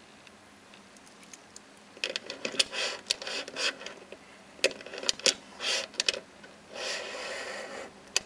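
Handling noise from a stainless steel watch and its link bracelet: a run of sharp clicks and clinks with short rattles, starting about two seconds in, and a longer scraping rustle near the end as the watch is laid on a surface.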